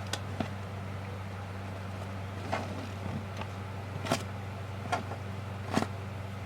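Slime made from squishies and borax activator being handled, giving a few short sticky clicks and snaps. A steady low hum runs underneath.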